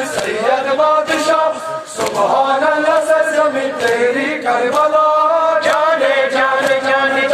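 Men's voices chanting a Muharram nauha together, on long held notes, over sharp slaps repeated about twice a second from matam, hands striking chests in time.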